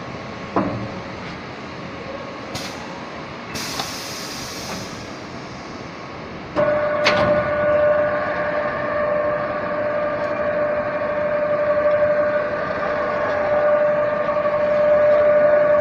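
Multi-spindle drilling machine drilling holes in a steel light-pole tube. Machinery hums with a knock and two short hisses in the first few seconds, then about six and a half seconds in it gets louder with a steady high whine that holds to the end.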